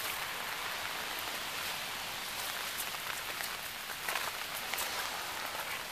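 Rain falling steadily on wet pavement and leaves, an even hiss with scattered single drops ticking through it.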